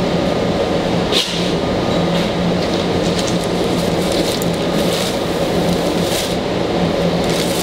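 Steady, loud background drone of a commercial kitchen, the ambient noise of its running equipment, with a low hum throughout. A brief knock about a second in.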